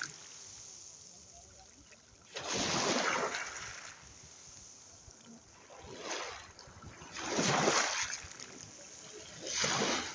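Sea waves breaking on the shore, each one a swell of splashing, rushing water a few seconds apart, with a quieter wash between them.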